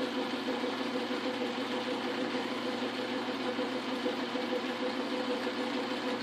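Montgomery Wards Logan lathe running steadily at slow speed, its motor and drive giving an even hum with a steady tone.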